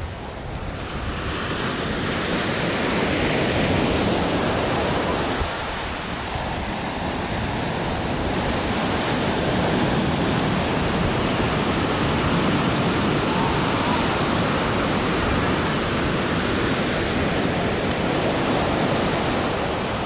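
Ocean surf breaking and washing up a sandy beach: a steady rush of noise that swells about a second in, eases briefly around five seconds, then swells again.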